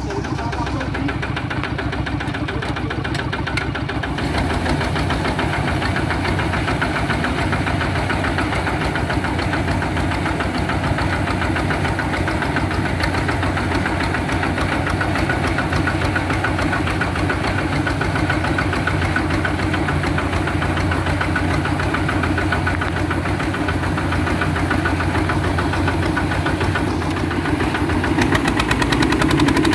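Engine of an H-140 R mini rice combine harvester running steadily with a fast, even beat, getting louder near the end.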